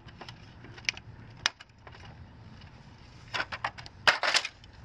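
Sharp hard-plastic clicks from pool cleaner parts being handled, a hubcap pried with a screwdriver and parts set down. A few single clicks come first, then a louder run of clicks and clatter near the end.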